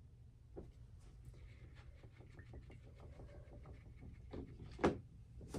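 Small irregular taps and scratches, typical of a paintbrush working on a stretched canvas, over a low room hum, with one sharp louder knock about five seconds in.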